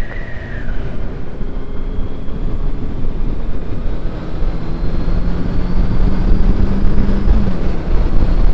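Motorcycle under way, its engine and rumble from the road and wind growing louder as it gathers speed. The engine holds a steady note for a few seconds, then the note falls near the end.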